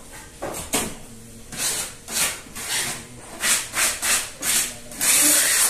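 Rough scraping or rubbing strokes, irregular at about two a second, with one longer stroke near the end.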